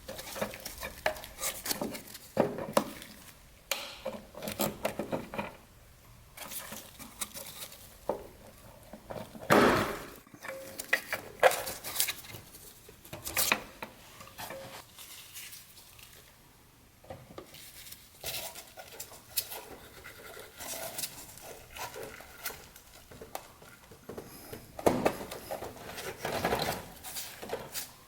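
Hand tools and metal parts clinking, knocking and scraping while the old steel brake lines are worked loose, in an irregular run of small strikes with a few louder knocks scattered through.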